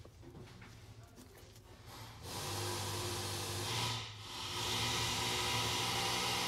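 A steady hiss with a low hum under it starts about two seconds in, dips briefly near the middle, then runs on steady and louder.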